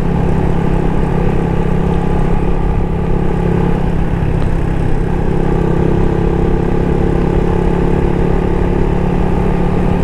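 Honda Wave 110i's single-cylinder four-stroke engine running at a steady cruise, holding an even pitch, with wind rumble on the microphone from riding.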